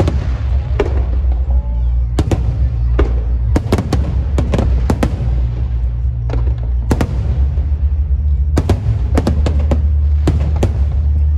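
Fireworks and firecrackers going off in loud, sharp, irregular bangs, about one every half second to second, over a steady low rumble.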